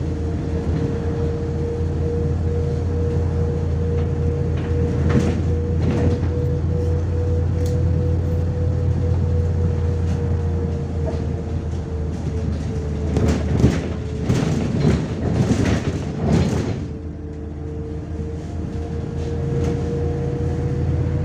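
Inside a moving MAZ-105 articulated city bus: the engine and drivetrain drone steadily under a constant whine. Sharp rattles and knocks come twice, briefly about five seconds in and in a denser run of a few seconds past the middle, then the drone eases off for a moment.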